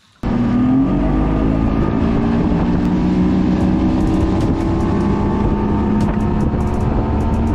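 A boat's outboard motor running steadily under way, cutting in suddenly just after the start.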